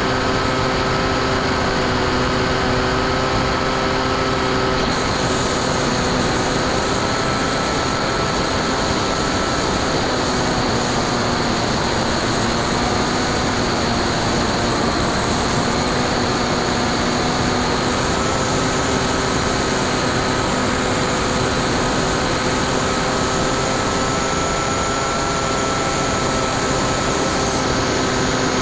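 Bixler 2 RC plane's brushless electric motor and 9x6 propeller running steadily in flight, a whine of several steady tones, heard from the camera on board with wind rushing over it. The pitch sags slightly around the middle and comes back up.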